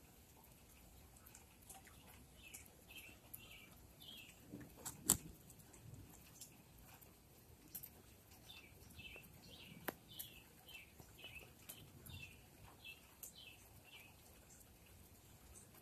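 Faint bird song: short notes that each slide downward, repeated in two runs of about two to three notes a second. Scattered light clicks come throughout, with one sharper tick about five seconds in.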